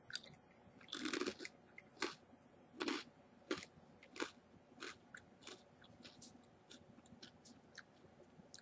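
Crunchy furikake senbei rice cracker topped with nori being bitten and chewed. A crisp crunch comes about a second in and another near three seconds, then smaller crunches that grow fainter and sparser.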